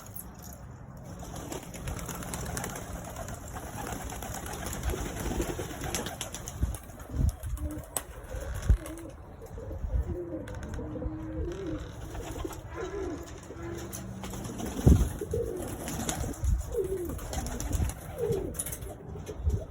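Racing pigeons cooing repeatedly, with a few short thumps scattered among the calls.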